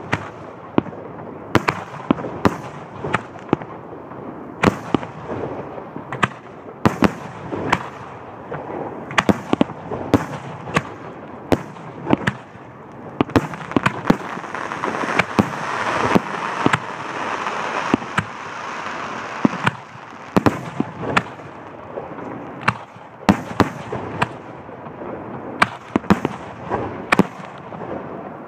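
Aerial fireworks shells bursting overhead in quick, irregular succession: dozens of sharp bangs, several in some seconds. About halfway through, a dense rushing noise swells under the bangs for several seconds, then fades.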